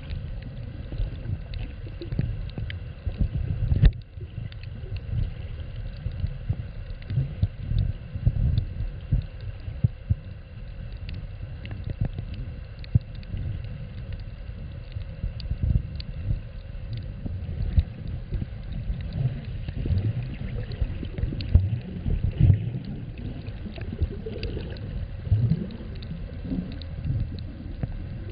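Muffled underwater sound from a camera held underwater: irregular low thumps, sloshing and gurgling of water moving around the camera as a snorkeller swims, with a faint steady high hum.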